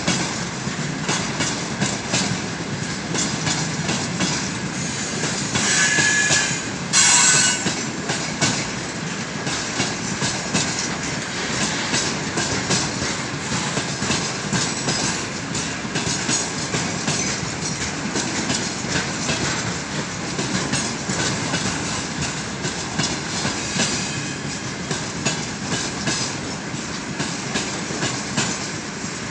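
Tank cars of a long freight train rolling past, wheels clattering rhythmically over rail joints with a steady rumble. A brief high-pitched wheel squeal rises about six seconds in and fades a second and a half later.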